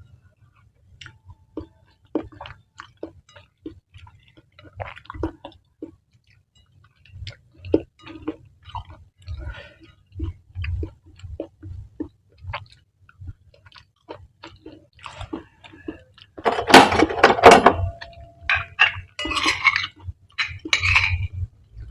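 Close-miked chewing of spicy mie nyemek (saucy fried instant noodles): soft, wet, separate chews and mouth clicks. About sixteen seconds in, a denser and louder run of eating sounds begins and lasts to near the end.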